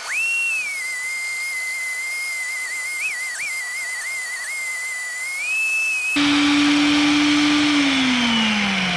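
Vevor BRM-35 magnetic drill press boring through steel plate with an annular cutter, giving a high, wavering whistle-like squeal for about six seconds. It then changes abruptly to a steadier, lower hum that slides down in pitch near the end as the spindle slows.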